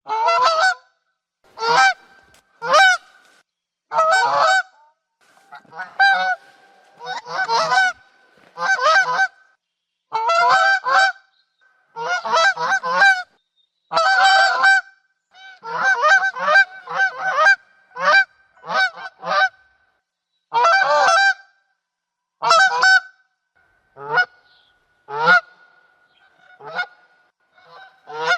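Geese honking again and again, loud calls one after another or in quick runs of two or three, with short pauses between them.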